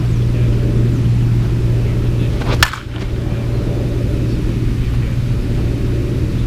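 A single sharp crack of a Dudley Lightning Bobby Nifong senior softball bat striking a slow-pitch softball, a little under three seconds in, over a steady low rumble.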